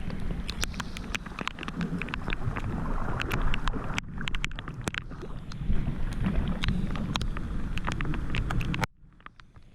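Rain drops tapping irregularly on a kayak and the camera, over a steady low rumble of wind on the microphone. The sound cuts off abruptly near the end.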